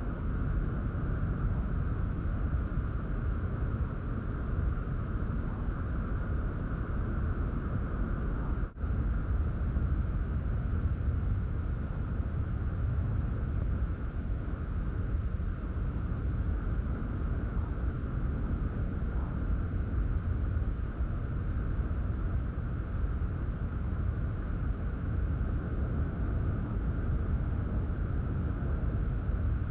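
Steady rush of wind and water spray past the microphone as a barefoot water skier is towed at speed, with a brief dropout in the sound about nine seconds in.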